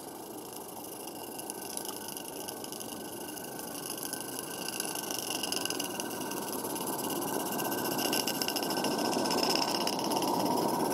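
Regner "Konrad" 0-4-0T live-steam garden-railway locomotive running past with its rake of open feldbahn wagons. A steady hissing, rapidly beating exhaust and wheel noise grows louder as it comes close and goes by.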